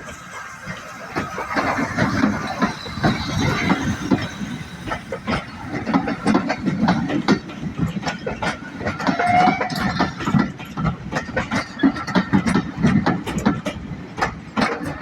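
Jinty 0-6-0 steam tank locomotive running slowly past, with a steady run of clanks and clicks from its wheels and motion over the rail joints. A short wheel squeal comes about nine seconds in.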